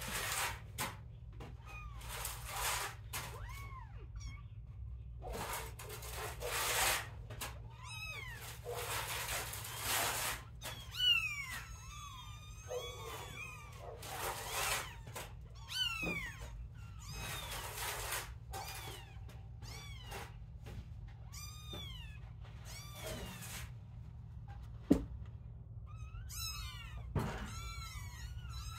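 Young kittens mewing: many short, high-pitched mews that rise and fall in pitch, some overlapping, with stretches of rustling and a sharp knock near the end.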